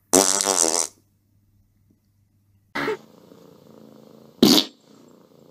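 A loud pitched cry lasting under a second near the start, then a tabby cat purring steadily from about three seconds in, broken by a brief loud sound about a second and a half later.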